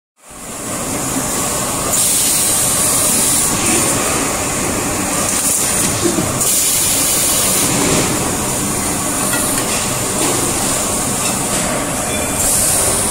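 Vertical edge-cutting machine running as it trims the rim of a drawn aluminium teapot body: loud, steady machine noise. A high hiss swells three times, each lasting about a second.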